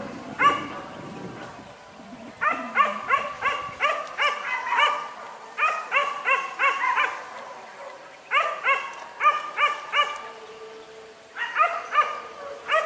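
Boar-hunting dogs yelping in quick runs of short, high barks, about three or four a second. There are several runs with short pauses between them.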